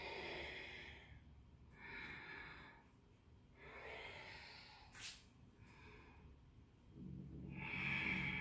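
A woman breathing audibly and with effort while exercising: about four long breaths, with a short click about five seconds in. A low steady hum comes in near the end.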